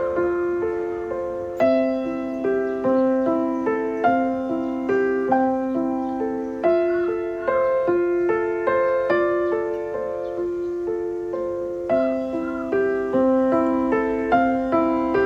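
Calm solo piano background music, a slow repeating pattern of struck notes.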